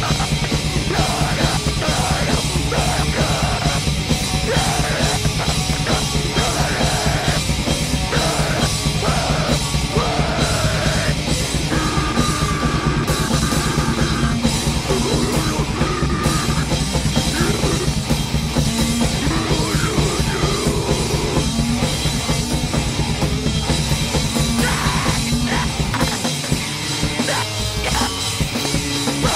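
Live powerviolence band playing: fast, heavy distorted guitar and bass over pounding drums and cymbals, with yelled vocals.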